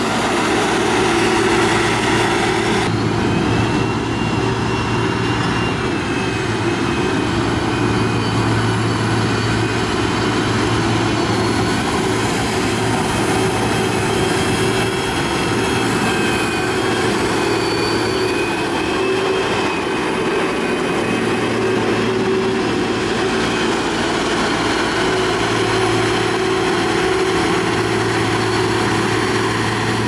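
Motor grader's diesel engine running steadily under load while it grades a dirt road, a constant heavy drone with a higher whine that wavers up and down in pitch.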